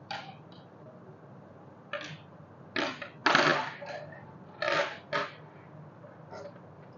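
Stainless-steel hand-mixer beaters and whisks clinking and rattling against each other and a wooden tabletop as they are handled and set down. There are several short clatters, the loudest and longest about three and a half seconds in.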